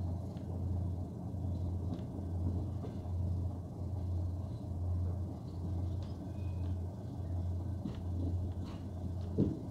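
Passenger train running, heard through an open carriage window: a steady low engine drone from the diesel locomotive hauling it, swelling and fading in a slow beat, over a rolling rumble. A few light clicks and a sharper knock come near the end.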